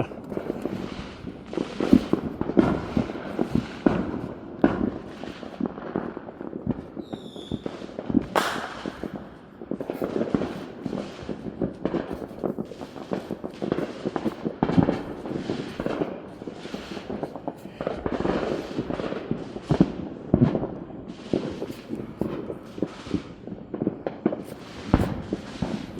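Consumer fireworks and firecrackers going off all around, a dense, unbroken string of bangs and pops, some near and sharp, others more distant.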